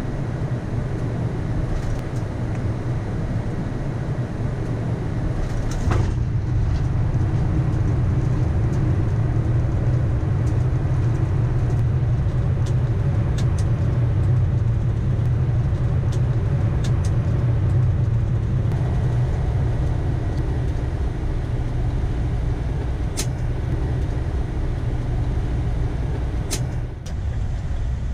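Flight-deck sound of a Boeing 787-9 Dreamliner on its landing rollout: a loud, steady low rumble of the engines and wheels on the runway as the airliner decelerates with reverse thrust and braking. There is a sharp thump about six seconds in. The rumble swells for a while and then eases about two-thirds of the way through as the airliner slows.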